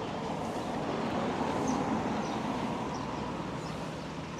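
A passing road vehicle: a rushing engine-and-tyre noise that swells about a second in and slowly fades, over a steady low hum.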